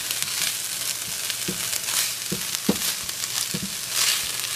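Ground beef, onion and garlic sizzling in a frying pan while a silicone spoon stirs them, each stroke swelling the hiss, with a few short knocks of the spoon against the pan.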